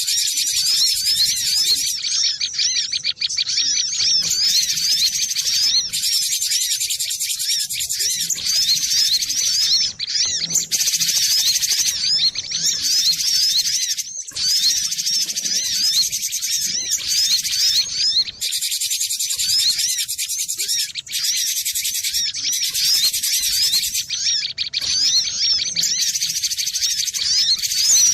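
Cinereous tit (gelatik batu) singing: a rapid, continuous stream of high chirping notes, with brief breaks every few seconds.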